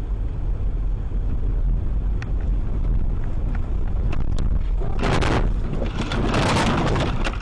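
Dashcam recording from inside a car on a snowy road: steady low road and engine rumble, then about five seconds in a sudden loud crash, followed a second later by a longer harsh noise of about a second, as the car collides and is thrown into the snow.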